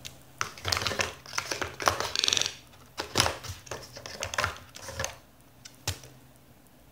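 A toco toucan's bill tapping, knocking and scraping against a cardboard phone box and the cable and contents inside it: an uneven run of sharp clicks and knocks with a short rattle near the middle, stopping about a second before the end.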